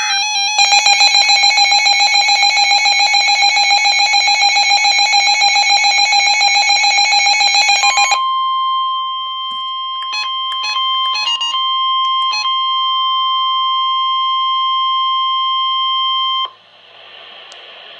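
NOAA Weather Radio Emergency Alert System warning alarm on a weather alert radio. A rapidly pulsing electronic alarm sounds for about eight seconds, then gives way to a steady tone near 1 kHz, the 1050 Hz warning alarm tone, with a few short beeps over it. It cuts off suddenly about sixteen seconds in, leaving a faint hiss before the spoken warning.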